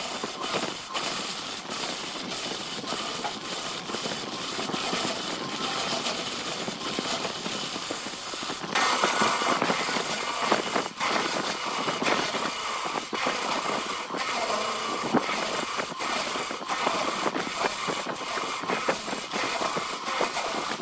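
Wood lathe spinning a glued-up laminated wood cylinder while a hand-held turning tool cuts along it: a continuous scraping, hissing cut with regular light ticks. About nine seconds in the cut grows louder and coarser.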